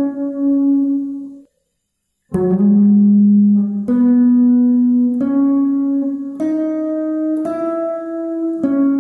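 Single notes picked one at a time on an electric guitar, a slow melody with each note ringing on until the next. About a second and a half in, the sound drops to dead silence for under a second. Then it resumes with a note that slides up into pitch, followed by about five more notes.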